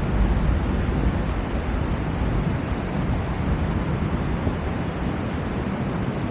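Heavy summer rain falling steadily, a dense even hiss, with a low rumble in the first second or so.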